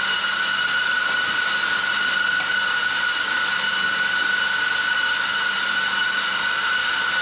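Electric espresso coffee grinder running, a steady motor whine over an even grinding hiss that does not change.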